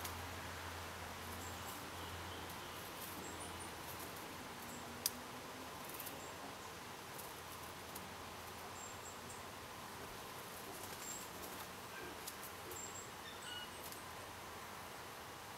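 Faint outdoor ambience: a steady hiss with scattered short, very high chirps and a few soft ticks, and one sharp click about five seconds in.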